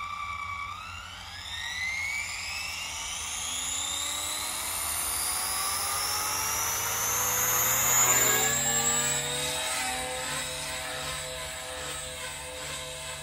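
Micro electric RC helicopter spooling up: the motor and rotor whine rises steadily in pitch for about eight seconds, then holds at a steady flight pitch.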